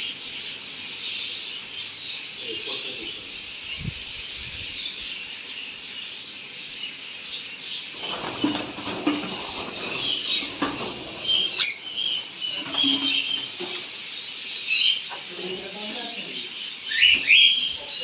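Continuous chirping and chattering of many caged small parrots, budgerigars and cockatiels among them, in a breeding aviary: a dense layer of short high tweets. A couple of short rising calls come near the end.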